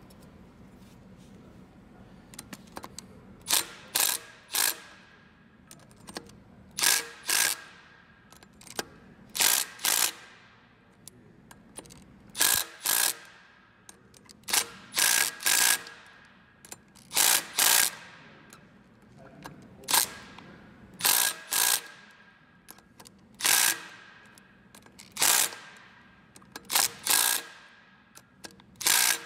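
Milwaukee Fuel cordless impact driver hammering in short bursts, often two at a time, every second or two. It is driving bolts down through a tapered steel bushing's threaded holes to jack a four-groove aluminum sheave off the taper.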